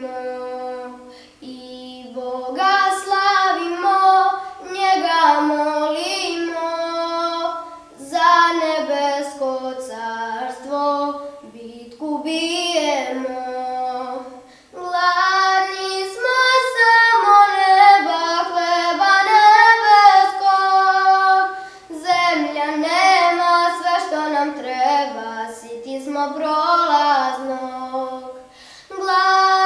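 A high solo voice singing a slow melody, holding long notes and breaking briefly between phrases.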